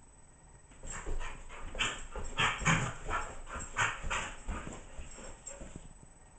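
Belgian Sheepdog chasing its tail in tight spins: a quick, irregular run of short, noisy scuffles and huffs that starts about a second in, is loudest in the middle, and dies away near the end.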